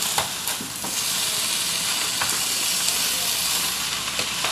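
Fried rice and raw meat sizzling steadily in a hot, oiled pan as they are stirred, with a few sharp clicks of the stirring utensil against the pan.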